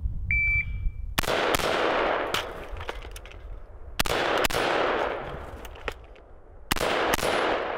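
A shot timer beeps, then an M16A1 rifle in 5.56 mm fires in three bursts of shooting, about a second, four seconds and nearly seven seconds in. Each burst is followed by a long echo, and sharper cracks and clicks come in between.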